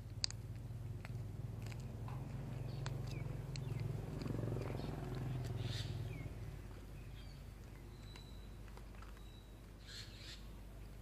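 Street cats licking and chewing food off the pavement: many quick wet clicks and smacks, over a low rumble that swells and then fades about two-thirds of the way through. A few faint bird chirps.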